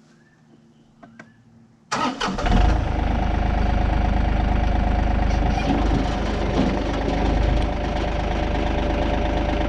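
A tractor engine starts suddenly about two seconds in, after a couple of small clicks, and then runs steadily with a deep low rumble.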